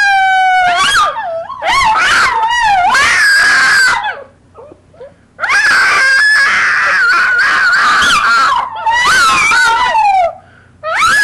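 A small dog screaming in a string of long, high-pitched, wavering cries with short breaks between them. It is separation distress: the person the dog is attached to has gone out for a walk with the other dog.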